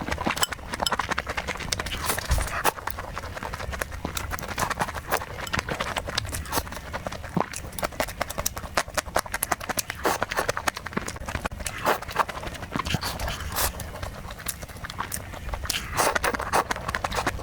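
Close-miked eating sounds: chewing and lip smacking, a dense run of wet clicks.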